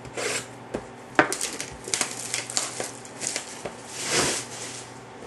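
Plastic shrink wrap being picked at, torn and crinkled off a 2010-11 Upper Deck Ultimate Collection hockey card box, with clicks and scrapes from the cardboard box being handled. A run of sharp crackles and rustles, with a longer swish about four seconds in.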